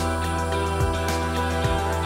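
Background music: a soft instrumental track with held notes over a steady low beat.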